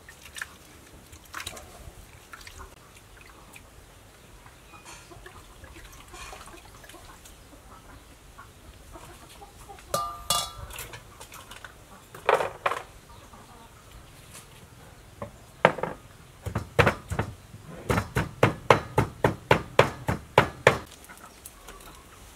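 A cleaver chopping food on a cutting board: scattered knocks and clinks of bowls at first, then a fast run of even chops, about four a second, over the last several seconds.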